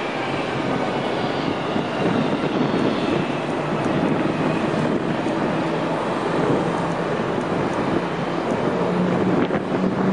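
Steady rumble of a moving vehicle heard from on board, with a faint low hum that rises near the end and a single brief click about nine and a half seconds in.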